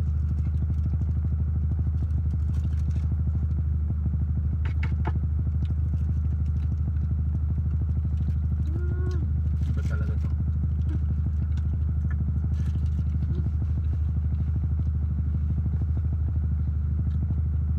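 Car engine idling steadily, heard from inside the cabin as an even low hum with a fast regular pulse. A few faint crinkles and clicks of burger wrappers are heard over it.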